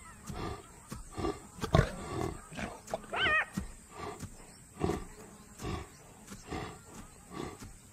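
Lioness panting hard through an open mouth after the exertion of a kill, a rough breath roughly every three-quarters of a second. A brief warbling call cuts in about three seconds in.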